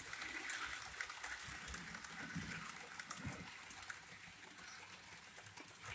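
Model trains running on the layout's track: a faint, steady rattle scattered with light clicks.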